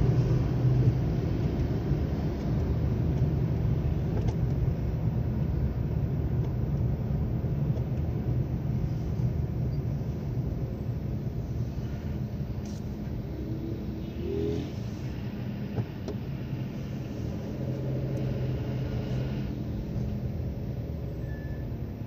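Car driving in traffic heard from inside the cabin: a steady low engine and road rumble that slowly gets quieter as the traffic thickens.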